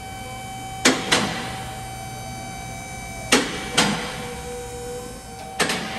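Front suspension creaking in sharp double clicks, about every two and a half seconds, as the steering is turned back and forth with the car lifted: the noise of a worn sway bar link pin. A steady faint hum runs underneath.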